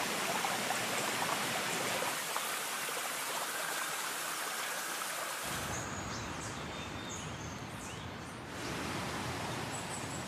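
Steady rushing-water ambience, an even hiss of flowing water that gains a deeper rumble about halfway through and slowly fades. A few faint, high chirps sound about two-thirds of the way in.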